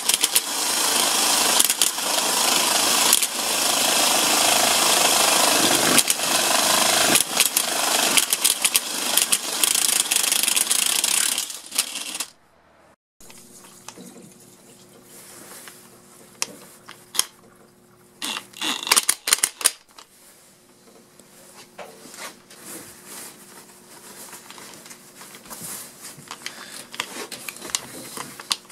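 Impact wrench fitted with a drill chuck, running and hammering rapidly for about twelve seconds, then stopping abruptly. After that there is a much quieter stretch of light clicks and handling rattles over a steady low hum.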